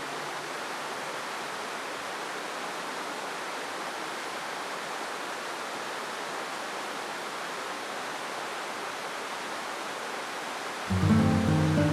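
Steady rushing noise of running water. Acoustic guitar music comes in near the end.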